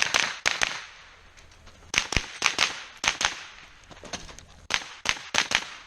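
Rapid rifle fire during a timed stage: three strings of quick shots, often fired in close pairs, with short pauses between the strings as the shooter moves between targets.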